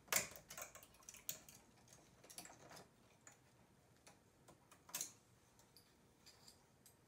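Metal prongs of knitting-machine transfer tools clicking against the machine's latch needles as stitches are lifted off and hung back on during a hand-crossed cable. A scatter of light, irregular clicks that thins out in the last two seconds.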